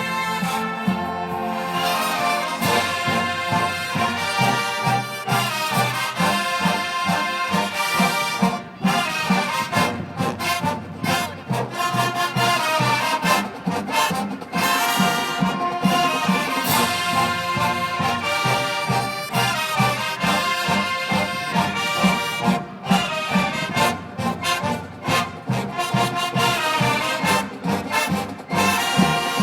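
Marching band playing: brass (trombones and trumpets) over drums with a steady beat.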